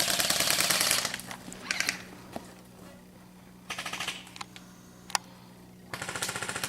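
Airsoft electric guns firing on full auto: a burst of about a second at the start, short bursts near 2 and 4 seconds in, and another burst near the end, with a few single sharp clicks between.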